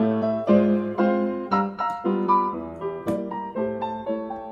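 Background ragtime piano music with a steady, bouncing beat of struck notes and chords.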